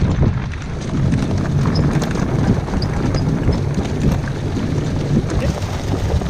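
Steady rumble and rattle of a dog-team training cart's wheels rolling over a leaf-strewn dirt trail behind the running dogs, with wind buffeting the microphone.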